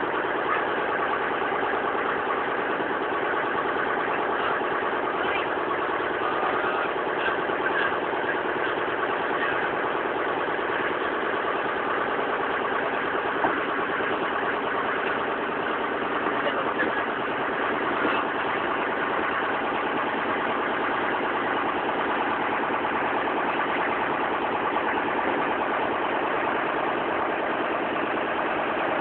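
An engine running steadily at an unchanging speed, a dense hum of steady tones with no revving.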